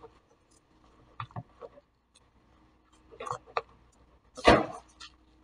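Slime being stirred with a mixing tool in a glass bowl: a few scattered clicks and scrapes, then a louder short thump about four and a half seconds in.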